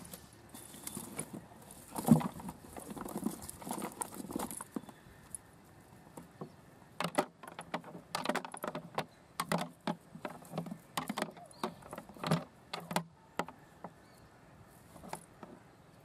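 Shrimp being shaken out of a fishing net into a plastic crate: the net rustles, then a run of irregular sharp taps and pattering as shrimp drop and flick against the crate's plastic.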